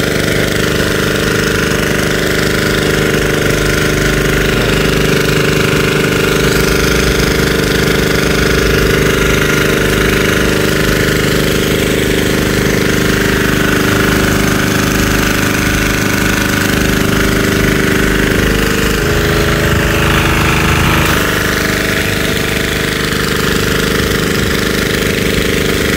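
Diesel-engine high pressure washer running steadily under load, the pump driving a jet through its narrowest nozzle: a steady engine note with the hiss of the spray over it. About 19 seconds in, the engine's note shifts for about two seconds, then settles back.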